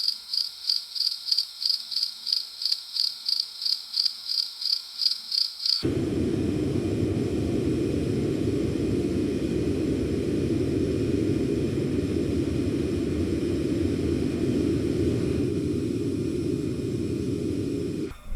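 High insect chirping that pulses about three to four times a second, cutting off suddenly about six seconds in. A steady low rumbling noise follows until near the end.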